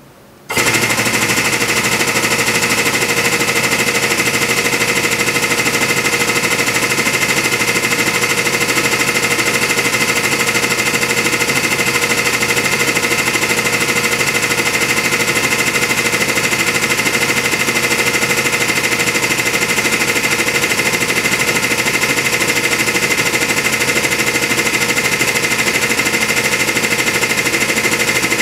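Hydraulic press pump motor starting about half a second in and running loudly and steadily with a high whine as the ram lowers.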